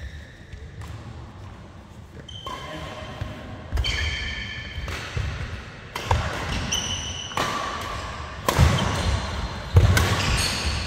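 Badminton doubles rally: rackets strike the shuttlecock with several sharp hits a second or two apart, the loudest near the end, and sneakers squeak in short high chirps on the court mat. The sounds echo in a large hall.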